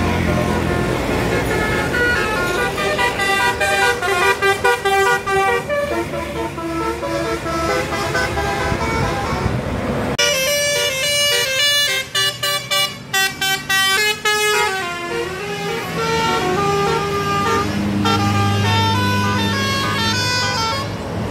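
Tour bus 'telolet' multi-tone musical air horn playing a melody, one note after another stepping up and down, over the bus's running engine. About ten seconds in, a louder burst of quick, choppy notes plays for several seconds before the tune settles back.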